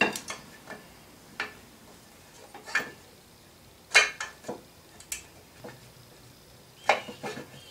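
Scattered metallic clinks and knocks, about a dozen at uneven intervals, as the oiled cylinder of a Yamaha Blaster 200 two-stroke engine is worked down over the piston and its rings.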